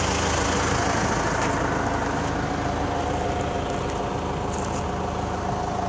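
John Deere 160LC excavator's 4.5-litre four-cylinder diesel (4045H) idling steadily: a constant low hum, with a faint steady whine above it from about a second and a half in.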